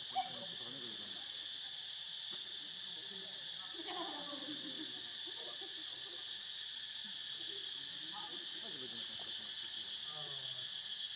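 Steady, high-pitched chorus of insects buzzing without a break, with a single sharp click just after the start.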